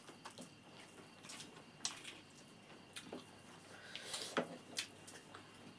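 Faint eating sounds: wet chewing and mouth smacks, with a handful of short, sharp clicks spread through.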